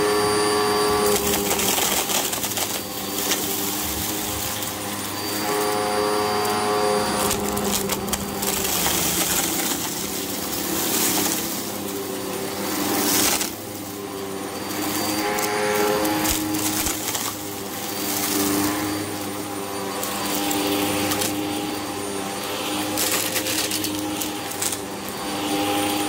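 Hoover WindTunnel upright vacuum cleaner running on carpet, sucking up a thick pile of dust and lint. A steady motor whine whose pitch shifts up and down, over rushing air that swells and fades.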